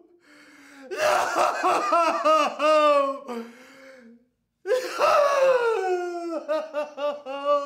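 A girl laughing in two long bursts of quick, high-pitched pulses, with a brief pause about four seconds in; the second burst slides down in pitch before breaking into rapid short pulses.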